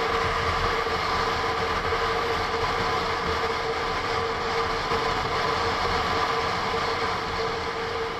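Onboard sound of a Honda NC750S DCT parallel-twin motorcycle under way: a steady engine drone under wind noise.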